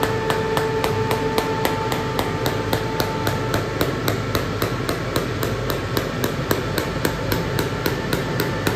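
Delphi diesel injector firing on a test bench: rapid, even clicking at about four clicks a second over the steady hum of the bench.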